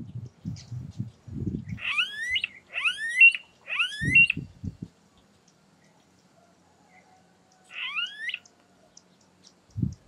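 Smooth-billed ani giving its rising, whining whistled call: three in quick succession about two seconds in, then one more near the end. Low rumbling bursts come in the first half.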